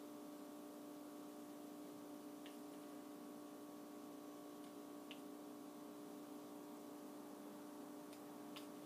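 Near silence: a low, steady electrical hum with room tone, and three faint ticks spread through it.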